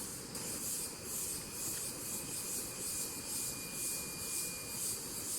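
Forest insects such as crickets calling in a chorus: a high, hissing trill that pulses about twice a second.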